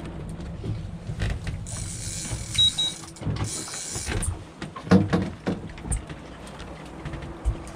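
Boat engine idling in neutral, with irregular knocks, rattles and short rushing noises while a hooked salmon is brought to the net.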